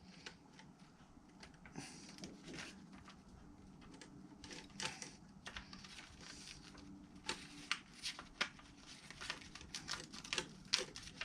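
Faint crinkling of paper and small scattered clicks and crackles, as a heated wire is worked through a 3D-printed plastic part with a sheet of paper held behind the wire. The clicks come more often in the second half.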